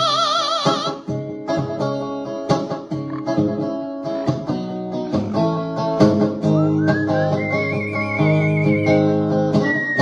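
Electric guitar playing chords while an Amazon parrot sings along in a wavering, whistle-like voice. About two-thirds of the way in, the parrot slides up to a high note and holds it with a wobble, then drops to a lower wavering note near the end.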